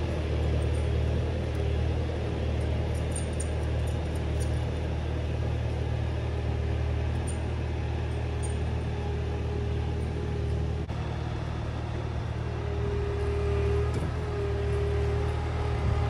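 Bobcat T590 compact track loader's diesel engine running steadily, with a thin steady whine joining in about three-quarters of the way through as the machine works.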